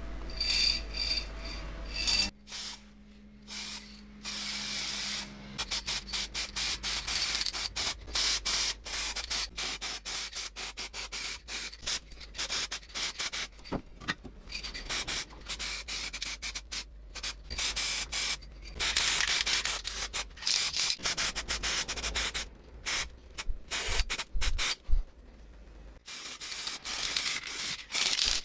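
Sandpaper rubbed by hand over the toy in quick back-and-forth strokes, with a few short pauses.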